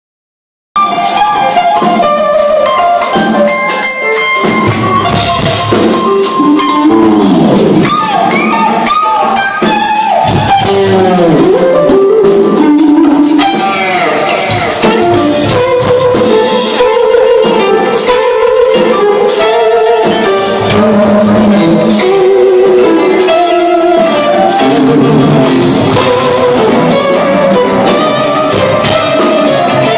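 Live instrumental rock played loud: two electric guitars carrying the melody with bends and slides over a drum kit and bass, heard from within the audience.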